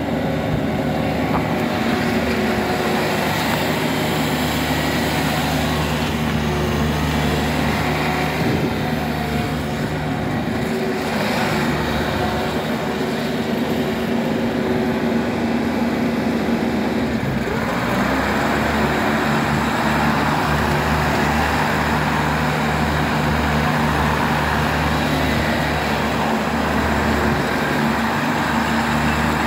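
Toro Groundmaster 7210 zero-turn mower's 33 hp Kubota three-cylinder diesel engine running steadily as the mower drives. About two-thirds of the way through the sound changes, with a stronger hiss higher up.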